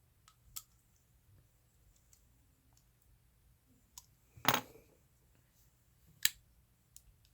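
A handful of sharp metallic clicks from a Harbor Freight folding knife being worked by hand, with one louder snap about halfway through, as the blade is opened, closed and wiggled to check its play.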